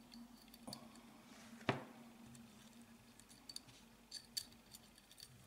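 Small steel parts and a coil spring being fitted into a Smith & Wesson Victory .22 pistol frame by hand: light metallic clicks and taps, with one sharper click about 1.7 s in and a quick run of light clicks near the end.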